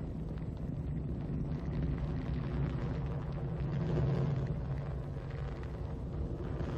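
Ariane 5 rocket's engines and solid boosters rumbling steadily during ascent, roughly twenty seconds after liftoff.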